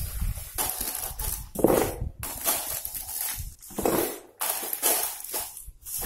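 Ice cubes rattling and crunching as a plastic cup is scooped into a bag of ice and poured into the ice compartment of a mini ice-storage air conditioner. The sound comes as a run of short rattling bursts, roughly one a second.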